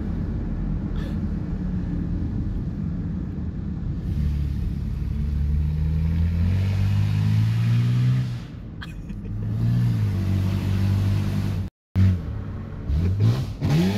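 Ford AU Falcon with an aftermarket cat-back exhaust, heard from inside a following car: a low rumble, then the revs climb hard from about four seconds in, dip and climb again, and rise sharply near the end as the car comes alongside. It is really loud.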